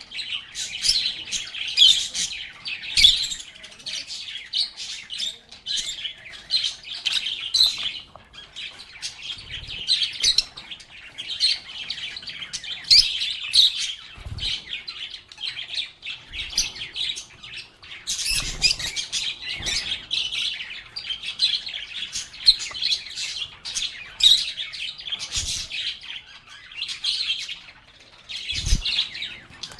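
A group of pet lovebirds chirping and chattering without pause in fast, high-pitched calls, with a few soft low thuds here and there.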